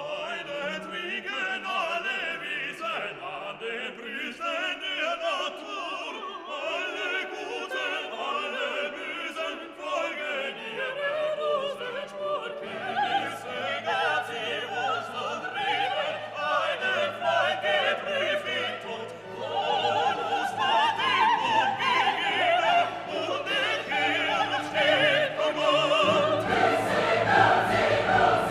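Classical music: an orchestra with operatic singing, growing fuller and louder near the end.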